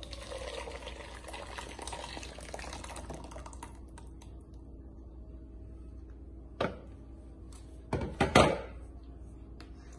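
Blended fava bean purée pouring from a blender jar into a cooking pot, a thick splashing pour that tapers off after about three and a half seconds. A few sharp knocks follow, the loudest a pair near the end.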